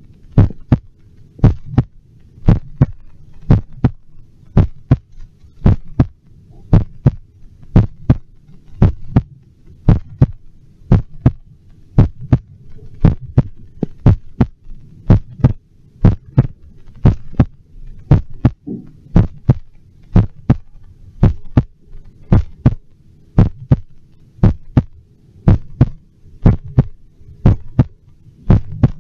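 A human heartbeat amplified through an electronic stethoscope: regular lub-dub pairs about once a second, over a faint steady hum.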